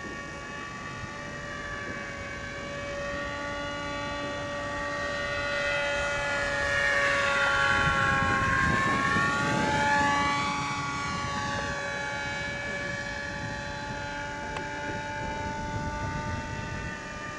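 Electric RC F-16 model jet's motor whining as it flies past, growing louder to a peak and dropping in pitch about nine seconds in, then fading.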